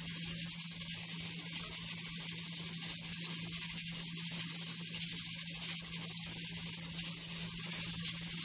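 Sliced red onion and garlic sizzling in hot oil in a frying pan, a steady hiss, at the sautéing stage before they brown. A steady low hum runs underneath.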